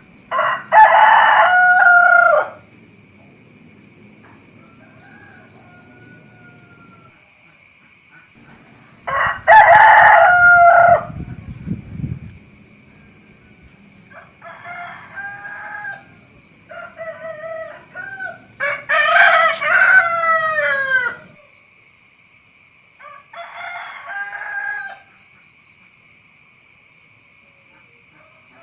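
Rooster crowing, loud twice, about a second in and again around ten seconds, then several quieter crows over the following quarter minute. A steady high-pitched hum with a pulsing trill runs underneath.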